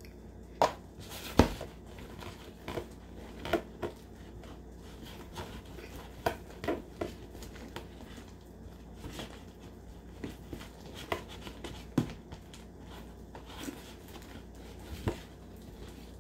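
Irregular clicks, taps and squelchy knocks of a glue, shaving cream and liquid detergent slime mixture being worked in a bowl, the sharpest knock about a second and a half in.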